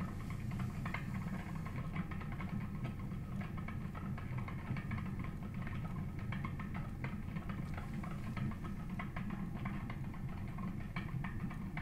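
Bicycle-wheel magnet generator spinning on with its coil shorted out: a steady low hum with a fine, rapid ticking on top. It keeps turning without stalling.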